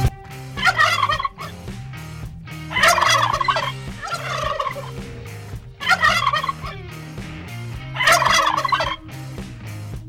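Turkey gobbling: a male's rapid, rattling gobble call given four times, a couple of seconds apart.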